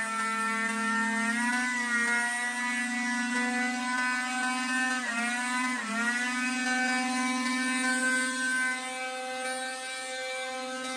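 Small petrol engine of a garden power tool running at high, steady revs. Its pitch dips sharply twice around the middle and sags slightly near the end.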